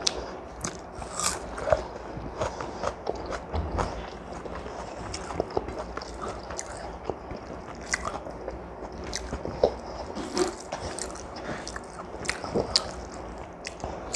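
Close-miked chewing and eating sounds of a person eating rice by hand: irregular small wet clicks and smacks of the mouth, with fingers mixing rice on the plate.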